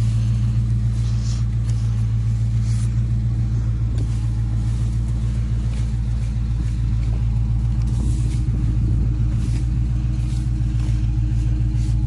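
Car engine running steadily: a constant deep hum that holds the same pitch throughout.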